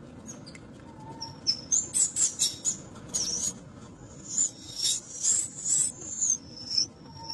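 Infant long-tailed macaque screaming in distress as it is pulled between two adults: a rapid run of about a dozen shrill, high-pitched squeals, starting about a second and a half in and ending just before the close.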